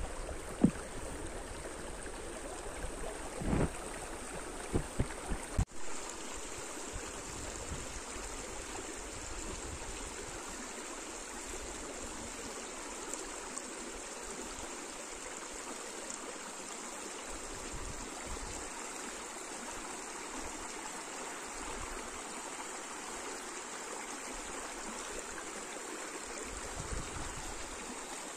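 Shallow mountain stream flowing over rocks, a steady rushing and babbling. A few short knocks sound in the first six seconds.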